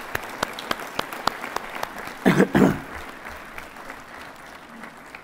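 Audience applause, a steady patter with single claps standing out, thinning toward the end. About two seconds in, two brief, much louder bursts of sound close to the microphone cut through it.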